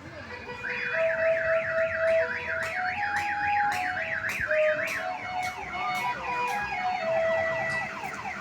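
Telolet musical horn on a tourist road train playing a tune of held notes over a fast warbling siren sweep. The warble changes to a different, choppier sweep about halfway through.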